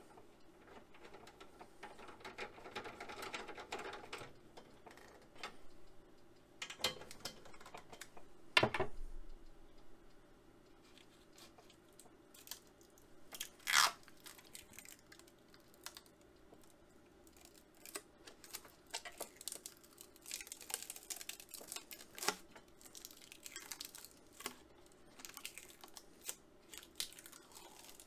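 Clear plastic protective film crinkling and tearing as it is handled and peeled off the glass face of a CRT, with scattered crackles and a couple of sharper knocks about a third of the way in and about halfway through.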